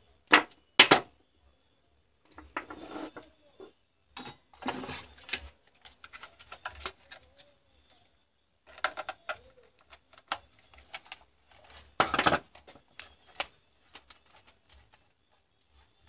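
Two sharp clicks from side cutters working the wire in the first second, then scattered rustling, taps and clatter as wires and tools are handled on a workbench, with a loud burst of handling noise about twelve seconds in.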